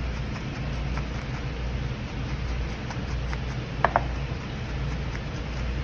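Chef's knife chopping parsley on a plastic cutting board: a few faint scattered taps, then two sharper knocks close together about four seconds in. A steady low hum runs underneath.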